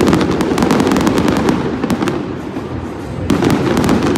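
Aerial fireworks going off in a rapid string of cracks and bangs, with two heavy volleys: one at the start and another a little over three seconds in.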